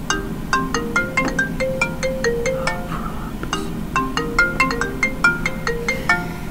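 Phone ringtone: a quick, repeating marimba-like melody of short notes.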